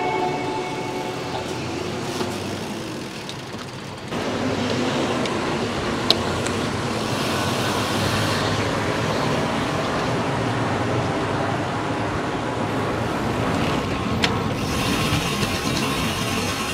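Steady road and traffic noise from motor vehicles on the road, growing louder about four seconds in, with two brief sharp clicks.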